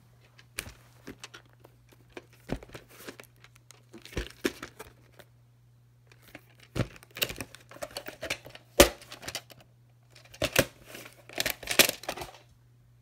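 Plastic clamshell VHS case being handled and turned over on a fabric bedspread: irregular clicks, taps and crackly rustling of plastic and cloth, with sharper clicks a little before the middle and near the end. A faint steady low hum runs underneath.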